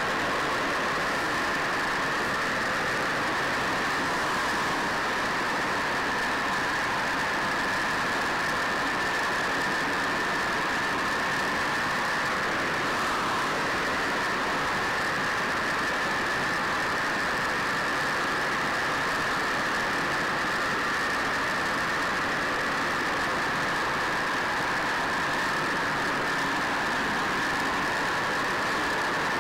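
Steady, unchanging drone of a B-25 Mitchell's two Wright R-2600 Twin Cyclone radial engines and the rush of air, heard from inside the bomber's glazed nose compartment in cruising flight.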